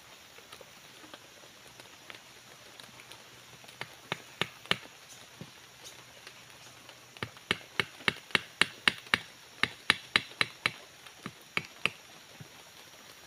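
Machete blade chopping into wood sticks. There are three sharp chops about four seconds in, then a run of about sixteen quick chops, roughly three a second, through the second half.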